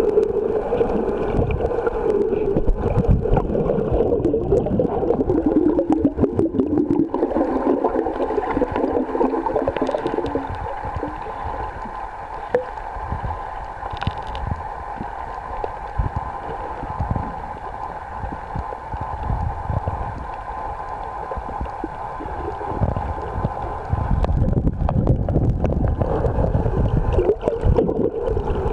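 Muffled underwater sound picked up by a submerged camera: water churning and gurgling with a steady low hum. It grows quieter about a third of the way in and louder again near the end.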